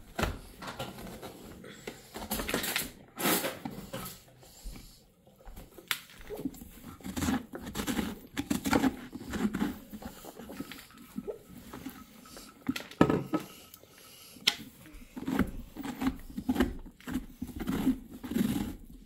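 Pumpkin being carved by hand: irregular scraping and cutting strokes with small knocks as a blade works through the rind and cut pieces are pushed out.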